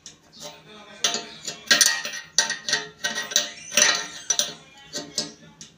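A metal wrench clinking against the coupling nut of a braided stainless-steel flexible hose as it is tightened: a run of sharp metallic clicks with short ringing, loudest about two and four seconds in.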